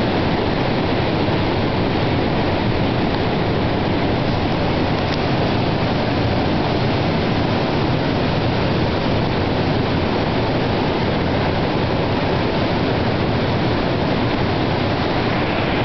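Steady roar of sea surf breaking on black rocks and a sand beach: an even, loud rushing noise with no distinct wave swells.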